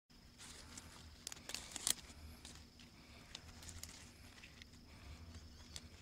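Dry grass stems and leaf litter crackling and rustling as a hand parts them, with a cluster of sharper snaps about a second and a half in.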